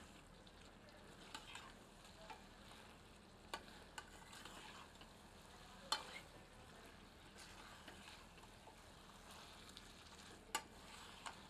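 Faint stirring of chicken pieces through thick frying masala in a stainless steel pressure cooker, with light sizzling and a few sharp clicks of the ladle against the pot.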